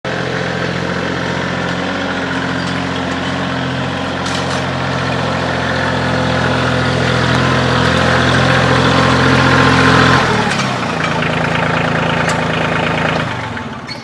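Compact tractor's engine running as the tractor drives up with a log on its front loader. About ten seconds in the revs drop, and the engine shuts off near the end.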